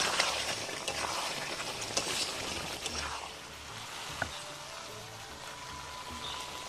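Chicken curry frying in a pan, a steady sizzling hiss that eases off after about three seconds, with two sharp clinks of a utensil, about two and four seconds in.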